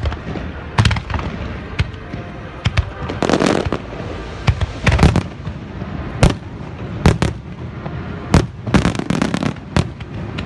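A fireworks display: aerial shells going off in an irregular run of sharp bangs, with clusters of rapid crackling bursts.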